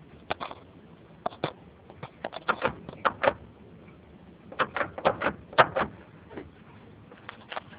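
Sharp metallic knocking from play in the middle control arm's mounting bolt of a Mazda Xedos 9's front suspension as the wheel is rocked by hand, coming in bursts of several quick knocks: a sign of a worn, loose arm bolt.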